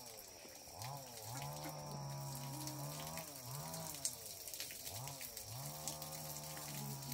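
Cattle mooing: a run of drawn-out calls, each opening with a short rising note before a long, level moo.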